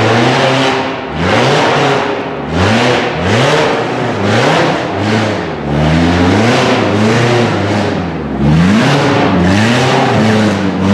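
Rock buggy's supercharged Ecotec four-cylinder engine revving up and down over and over, its pitch rising and falling about once a second as it is throttled in bursts to crawl up a rocky hill.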